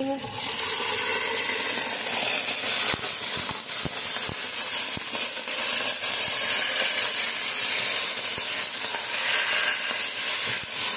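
Raw meat on the bone sizzling hard in hot oil and fried onions in a pot. The sizzle starts suddenly as the meat goes in and holds steady, with a few clicks of the spatula against the pot as it is stirred.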